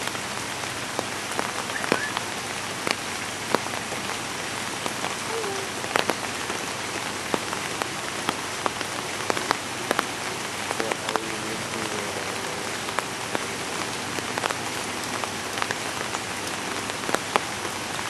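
Steady rain falling, an even hiss with many irregular sharp drop impacts close by.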